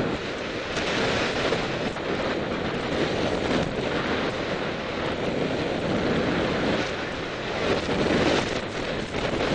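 Wind buffeting the microphone: a steady rushing noise that swells and dips.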